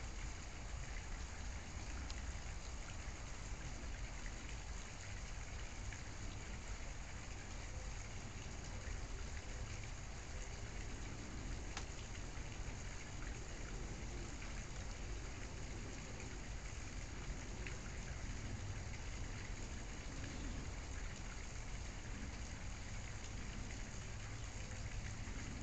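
Steady, even hiss of background noise with a few faint scattered ticks.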